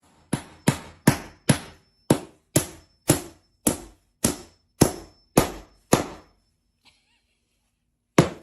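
A steady series of sharp knocks or blows, about two a second, a dozen in a row. They pause for about two seconds, then start again at the same pace near the end.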